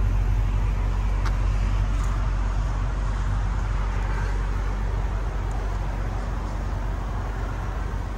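Steady low rumble of motor-vehicle noise, with a single light click about a second in.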